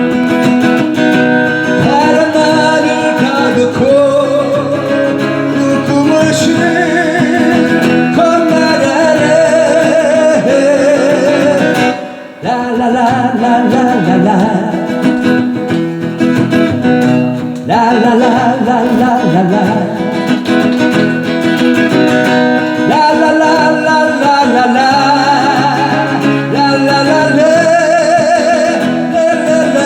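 A voice sings held, wavering notes over acoustic guitar accompaniment in a live song performance. The music breaks off briefly about twelve seconds in.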